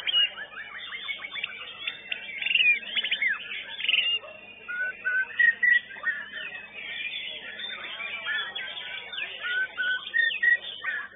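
White-rumped shamas (murai batu) singing in a contest chorus: a dense run of quick chirps, trills and sweeping whistles from several birds at once, with short clear whistled phrases standing out around the middle and again near the end.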